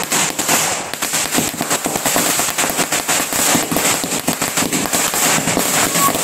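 A string of firecrackers going off: a rapid, unbroken run of small sharp bangs.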